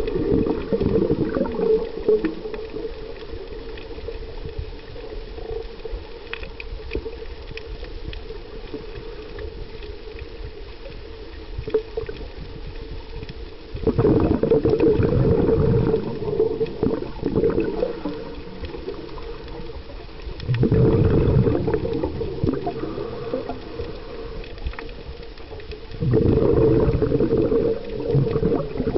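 Scuba diver breathing through a regulator underwater: loud bubbling gurgles of exhaled air in bursts of two to three seconds, at the start and about 14, 21 and 26 seconds in, with a quieter low rumble between breaths.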